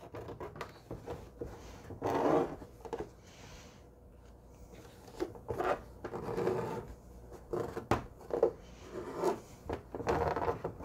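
Fabric patches of a quilt block being handled and slid across a table: several short, irregular rustles, with one sharp click about eight seconds in.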